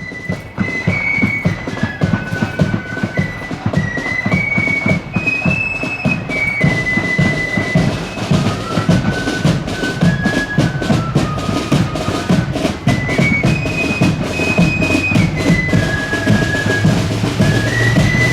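Marching flute band playing a tune: a high flute melody moving in steps over a steady beat of bass drum and rapid snare drum rolls.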